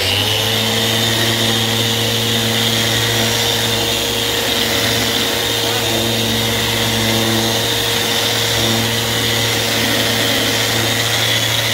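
Festool Rotex RO 150 eccentric sander switched on, spinning up quickly and then running at a constant, steady pitch as its pad works across the face of a clear block.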